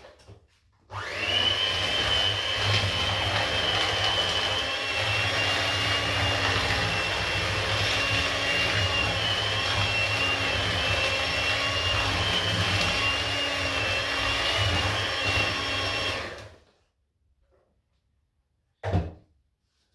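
Electric hand mixer running steadily with a high motor whine as its beaters whisk brownie batter in a plastic bowl, switched off about three-quarters of the way through. A single short knock follows near the end.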